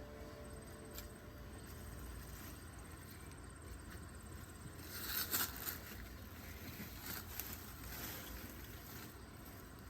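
Faint rustling and scraping, with a single click about a second in and a cluster of short scrapes around the middle.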